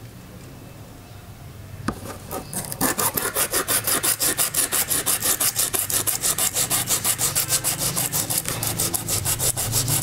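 Abrasive paper rubbed fast back and forth over the rusted steel blade of sewing thread snips to scour off rust. The scraping starts about two seconds in and keeps an even rhythm of about five strokes a second.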